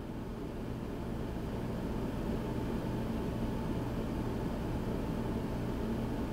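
Room tone of a small room: a steady low hum with a soft hiss, fading up gently over the first couple of seconds.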